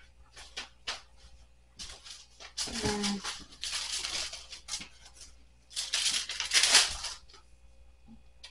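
Paper bills and envelopes rustling as they are handled: a few light taps, then two longer spells of rustling, about three and six seconds in.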